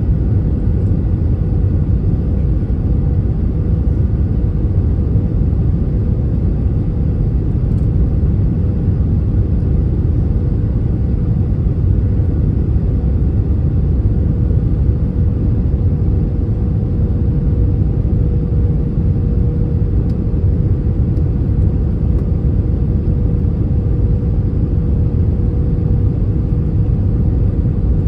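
Airbus A320-200 cabin noise in flight: a steady, loud low rumble of airflow and engines, with a faint steady hum running under it.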